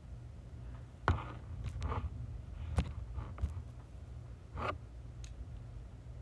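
Knife cutting through packing tape on a cardboard box: a series of short scrapes and rips, the sharpest about a second in and near three seconds.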